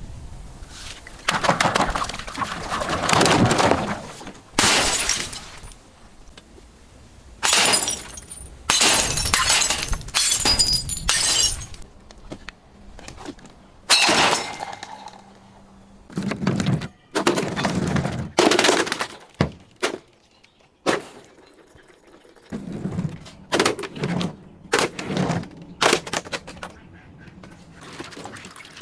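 Glass bottles and other crunchy objects being crushed and broken: a long series of loud crunching and shattering bursts, some drawn out over a second or two, with glass tinkling during several of those in the first half.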